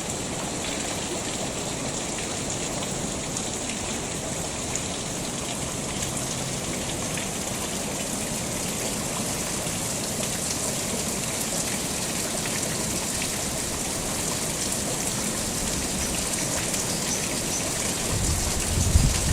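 Steady rushing water noise, with a brief low rumble near the end.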